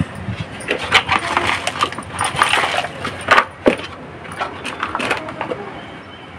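Hands scraping and pressing potting soil and small brick pieces in a plastic pot: scratchy rustling with many small clicks and knocks as the stones hit each other and the pot, busiest in the first three seconds.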